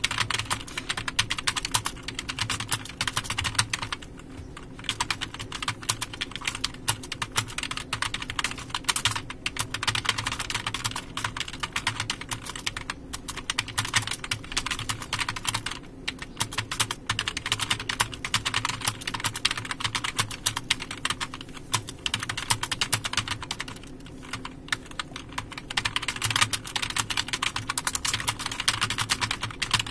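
Fast, continuous typing on a computer keyboard, the keystrokes clattering in quick succession and pausing briefly three times, over a low steady hum.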